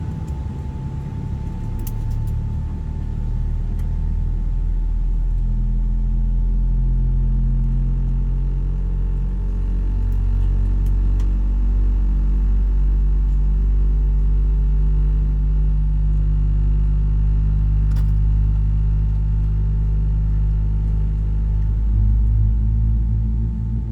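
Low rumble and drone of a Boeing 777-300ER heard inside the cabin during pushback. It grows louder over the first few seconds and then holds steady, with humming tones that shift in pitch a few times.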